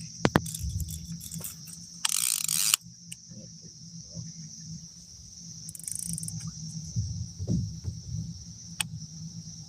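Steady high-pitched drone of an insect chorus, with a low rumble beneath. About two seconds in, a loud hiss-like burst lasts under a second; a few sharp clicks come near the start and near the end.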